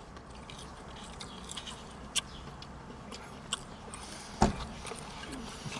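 Close-up eating sounds of a Popeyes Sweet & Crunchy breaded chicken tender being bitten and chewed, with a few sharp crunches. A dull thump about four and a half seconds in is the loudest sound.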